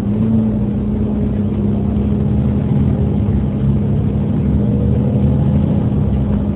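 Volvo B7TL double-decker bus's diesel engine pulling, with its cooling fan whirring loudly over the engine. A steady hum under a low rumble; the sound swells slightly in the first second, then holds.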